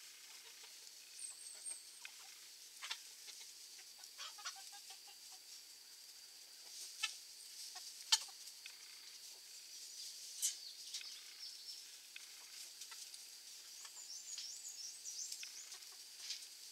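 A flock of chickens scratching and pecking in dry grass, with soft low clucks and scattered sharp scuffs and ticks, a few of them louder. A steady high-pitched drone sits behind them.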